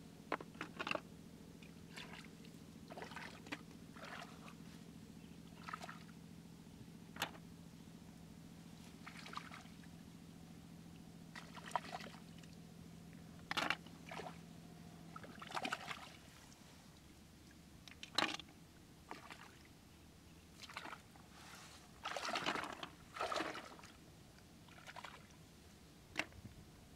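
Hands moving and splashing in shallow muddy paddy water, with irregular short splashes, sloshes and drips as snails are picked out by hand.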